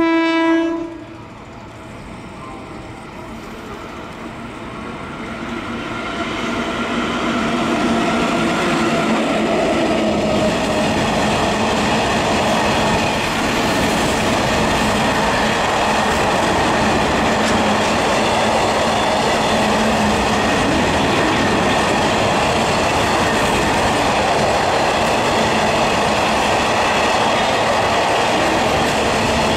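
A WAG-7 electric locomotive sounds one short horn blast of about a second. Its freight train then rolls closer, growing louder over several seconds, and a long string of open freight wagons passes close by with a steady rumble of wheels on the rails.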